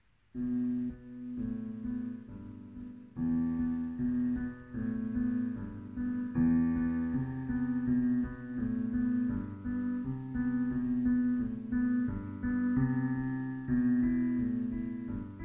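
An 88-key digital piano playing chords, starting abruptly about half a second in, with a low note struck again and again under changing chords.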